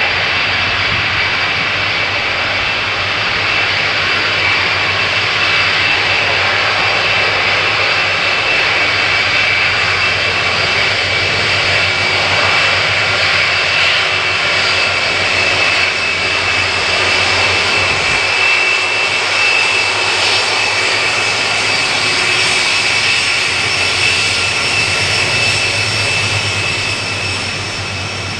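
Boeing 747-400 freighter's four jet engines running steadily as the aircraft taxis, a dense engine noise with a high whine over it, easing off slightly near the end as it moves away.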